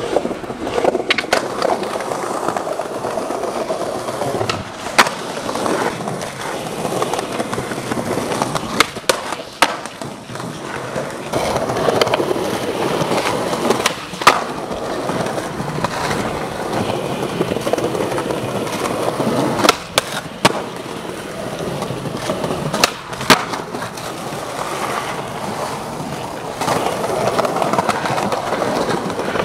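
Skateboard wheels rolling over concrete with a continuous rough rumble, broken several times by sharp clacks of the board popping and landing.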